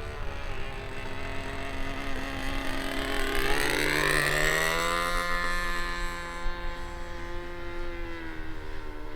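SH GF6 .37 gas engine with glow ignition running a model plane's propeller in flight. The engine note is steady, then grows louder and swings up and back down in pitch around four seconds in, as the plane passes by, before settling again.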